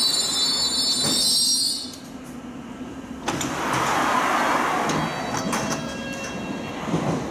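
London Underground train in the station: a high-pitched squeal of wheels and brakes that stops about two seconds in, then a sudden loud hiss about three seconds in that slowly dies away.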